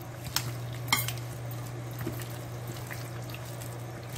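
Hand kneading raw chicken pieces in a wet yogurt-and-spice marinade on a ceramic plate: a soft, steady wet squelching, with a couple of sharp clicks about half a second and a second in, over a steady low hum.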